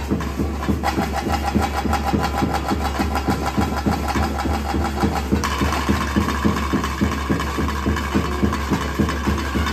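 Daiva kola ritual band: drums beaten in a fast, steady rhythm while a wind instrument plays a melody, then holds a single high note from about five and a half seconds in. A steady low hum runs underneath.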